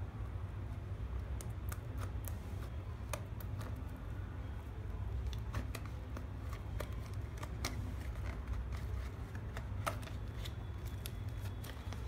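Small scissors snipping at a paperboard box, then the box being handled and its inner tray slid out of the sleeve: scattered light clicks, snips and scrapes over a low steady hum.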